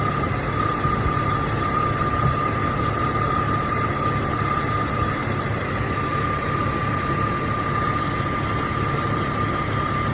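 2000 Jeep Cherokee XJ engine idling steadily while its cooling system is burped of trapped air bubbles, with a steady high whine running alongside.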